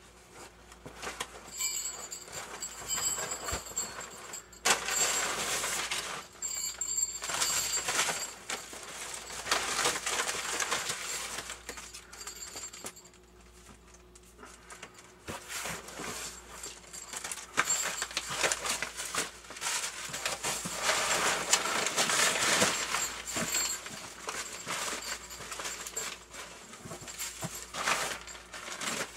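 Rustling and scraping of packaging being handled and opened by hand, in irregular bursts with a short lull near the middle.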